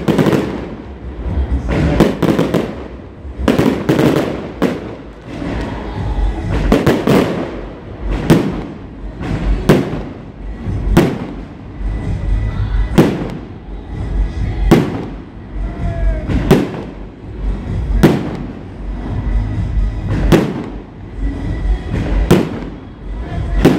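Fireworks display: aerial shells bursting in a long series of sharp bangs, roughly one a second, over a continuous low rumble.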